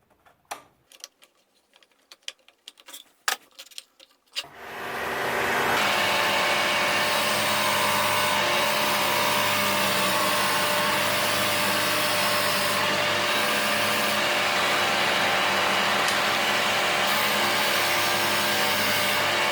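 A few light clicks and taps of a mitre gauge being set, then about four seconds in a dust-extraction vacuum and a lathe-driven 12-inch disc sander start up and run with a steady loud rush over a low hum while a mitre is sanded.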